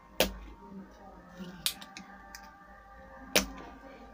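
Spring-loaded desoldering pump firing three times, sharp snaps about a second and a half apart, as it sucks molten solder off the pins of a faulty transformer on a power supply circuit board.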